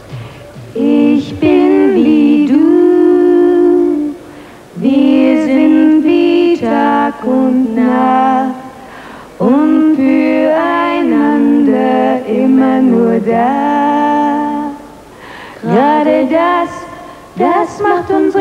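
Two women's voices singing a slow melody together in close harmony, in phrases of a few seconds with short breaks between them.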